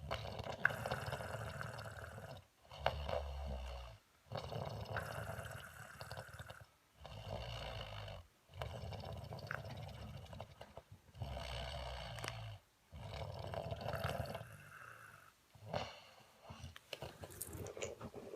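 A person snoring, with a rasping snore on both the in-breath and the out-breath, about four full breaths with short pauses between them; the last breath is weaker and more broken.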